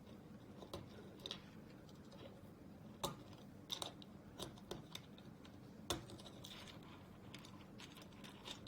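Small plastic kit parts being handled and fitted together: scattered light clicks and taps at an irregular pace, the sharpest about three and six seconds in, over a faint low hum.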